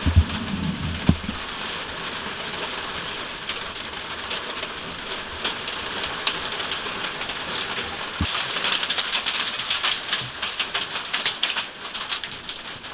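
Hail coming down hard, a dense patter of sharp clicks on surfaces that grows heavier about eight seconds in. There are two dull thumps in the first second or so.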